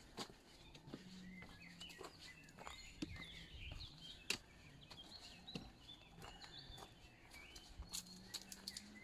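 Faint songbirds chirping in short, varied phrases, with footsteps crunching on a dirt and leaf-litter path. One step stands out as a sharper crunch a little after the middle.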